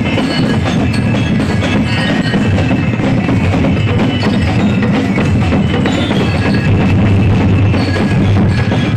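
Loud music driven by dense percussion, with bell-like mallet tones over it.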